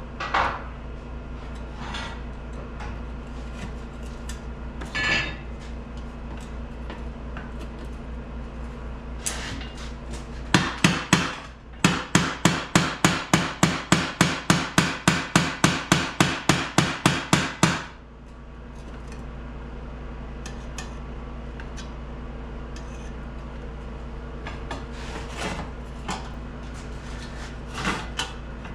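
Hammer blows on steel: a few scattered taps, then a fast, even run of loud strikes, about four a second for some six seconds, that stops abruptly.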